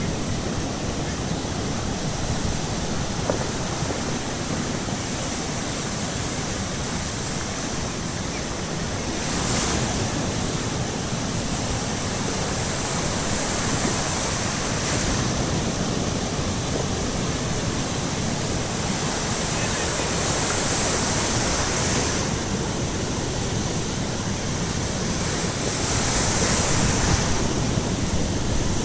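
Baltic Sea surf washing onto the shore: a steady rush of breaking waves that swells louder a few times as bigger waves break.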